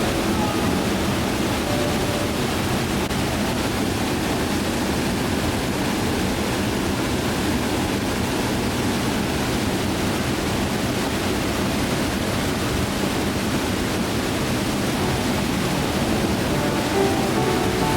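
Running water rushing steadily, like a waterfall, with no breaks. Soft music notes fade out just after the start and come back near the end.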